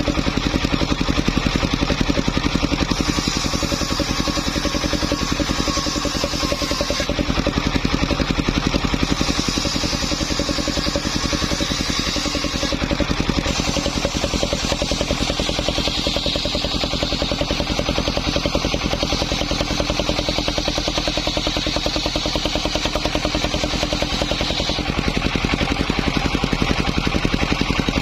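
Small engine running steadily, driving a homemade circular saw rig as it rips waru (sea hibiscus) wood into roof battens; a higher hiss from the blade strengthens and eases in stretches of a few seconds as the cuts go on.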